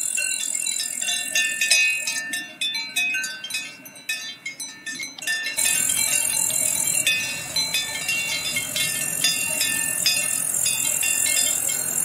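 Cowbells on grazing cattle clanking irregularly, many overlapping ringing strikes. About halfway through, the sound changes abruptly to another recording of the bells with a steady hiss and low rumble behind them.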